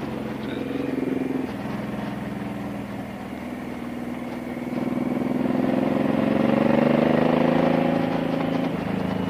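Motorcycle engine running under way, with wind noise. About halfway through the revs climb as it accelerates, then drop back near the end.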